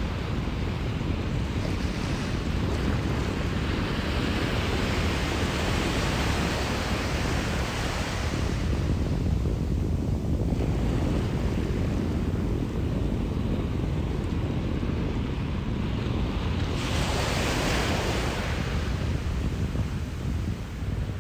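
Ocean surf breaking and washing on the beach, with wind rumbling on the microphone. The hiss of the surf swells up a few seconds in and again about three-quarters of the way through.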